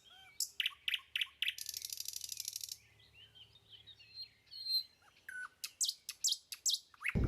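Small birds chirping and calling in short high notes, with a fast, even, high-pitched trill lasting about a second from about a second and a half in. Loud low noise cuts in at the very end.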